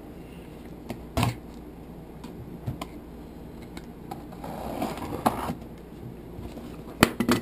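Cardboard shipping box being opened by hand: scattered clicks and knocks, a rustling, scraping stretch about halfway through, and a cluster of sharp knocks near the end.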